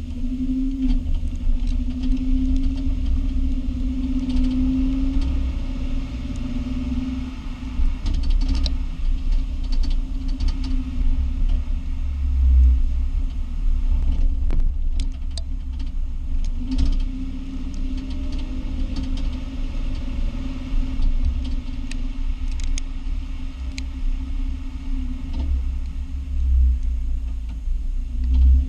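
Lexus IS250 driving, with steady road rumble and irregular clicks and knocks from the left rear. The noise comes from a broken slide pin on the left rear brake caliper.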